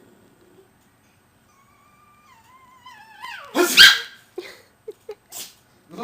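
Puppy vocalising: a thin whine starts about a second and a half in and steps down in pitch, then breaks into one loud bark about three and a half seconds in, followed by a few short yips.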